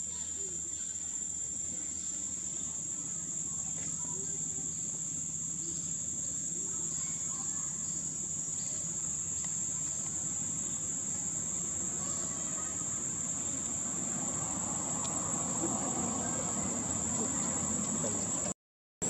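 Outdoor insect chorus: a steady high-pitched drone, with a broader, lower rushing noise swelling from about two-thirds of the way through. The sound cuts out for about half a second near the end.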